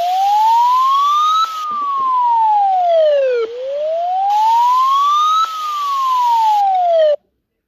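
A siren wailing in a slow cycle: one clean tone rising for about two seconds and falling for about two, twice over, then cutting off suddenly near the end.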